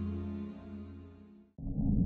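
Ambient background music with sustained notes fading out to near silence, then a deep low rumble starts abruptly about a second and a half in.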